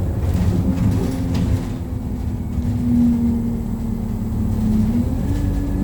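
ADL Enviro200 single-deck bus under way, heard from inside the saloon: engine and road rumble with a steady droning tone that dips slightly near the end.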